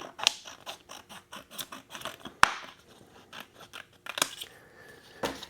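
Scissors cutting a sheet of vinyl into strips: a run of quick snips and scratchy cuts, with a sharper click about two and a half seconds in and another about four seconds in.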